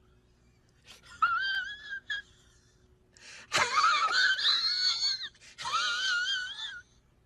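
A high-pitched, quivering wailing cry used as a meme sound effect. It comes in three drawn-out sobs, the middle one the loudest, each wavering up and down in pitch.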